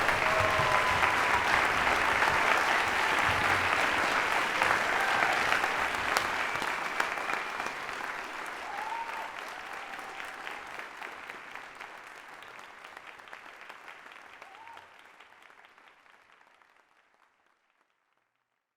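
Concert audience applauding, with a few voices calling out over the clapping; the applause holds steady for about six seconds, then fades gradually away to nothing near the end.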